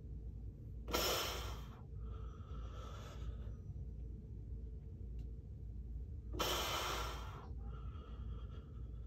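A man breathing hard with the effort of slow push-ups: a loud rushing exhale about a second in, followed by a softer inhale, and the same pair again about six and a half seconds in.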